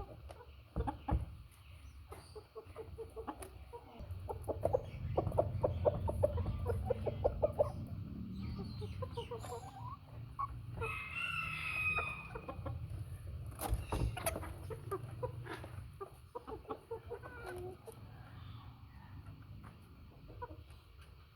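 Heavy-breed hens clucking in quick runs of short notes, with one longer drawn-out call about halfway through and a sharp click shortly after, over a steady low rumble.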